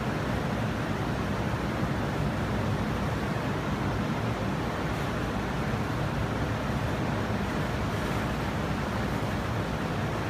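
Rooftop air-conditioning units running: a steady rushing noise with a low hum underneath.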